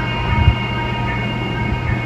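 Steady low droning hum with a few faint held tones above it, and one dull thump about half a second in.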